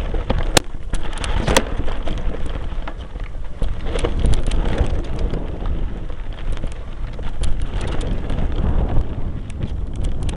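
Mountain bike rolling over a rough, stony dirt trail, picked up by a camera mounted on the bike's front: a constant low rumble of wind and vibration with scattered rattling clicks from the tyres and bike over the stones.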